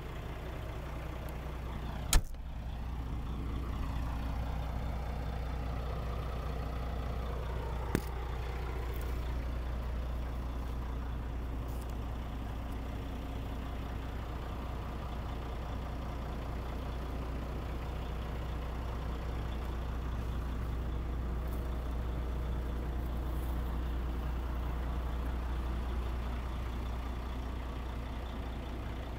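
John Deere 210C tractor loader's diesel engine idling steadily, with one sharp bang about two seconds in and a lighter click several seconds later.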